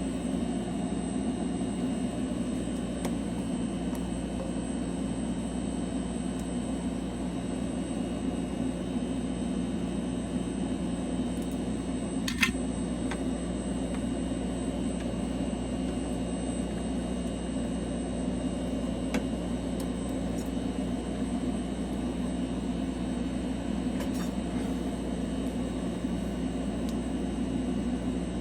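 Steady hum of a running machine, with a single sharp click about twelve seconds in.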